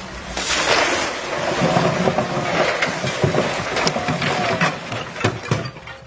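Tall palm tree falling and crashing onto a tiled house roof: a rush of fronds through the air, then a jumble of cracks and knocks as it lands, with two sharp knocks near the end.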